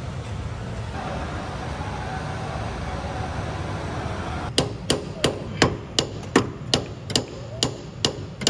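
Hammer striking a rust-seized steering joint under a vehicle to knock it loose. The sharp metal blows start about halfway through and come about three a second, over a steady background hum.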